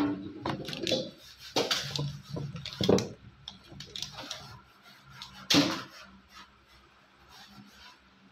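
Kitchen clatter: a handful of sharp knocks and bangs of utensils and containers being handled, the loudest near the start, at about one and a half, three and five and a half seconds, with lighter rattling between.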